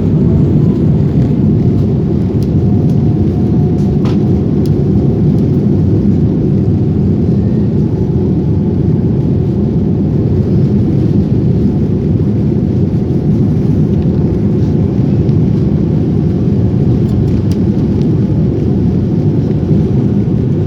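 Airliner engines at takeoff power, heard inside the passenger cabin: a loud, steady rumble. A faint whine rises at the start and then holds steady.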